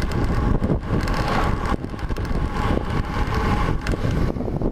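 Loud wind buffeting the microphone of a road bike coasting fast downhill, with rumble and knocks from the tyres on a bumpy road surface.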